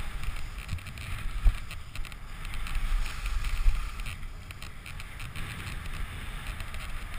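Skis sliding and scraping over hard-packed groomed snow, with wind rumbling on the camera's microphone; the noise swells and dips unevenly, with a few sharper scrapes.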